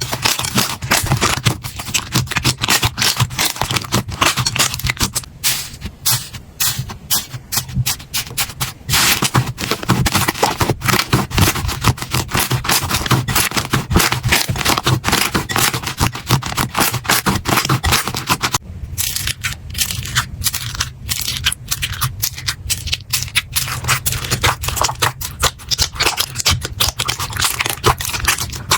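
Slime being squeezed, pressed and poked by hand, giving dense, rapid crackling and clicking.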